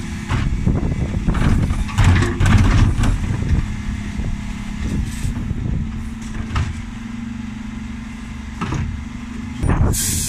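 Dennis Elite 6 refuse truck with a Terberg TA-DE bin lift emptying two wheelie bins over a steady engine and hydraulic hum. Sharp bangs and clatter in the first three seconds as the bins are shaken out, and another knock near the end as the lift comes down.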